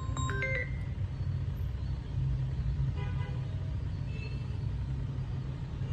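Steady low rumble, with a brief pitched toot about three seconds in; the last notes of a chiming jingle ring out at the very start.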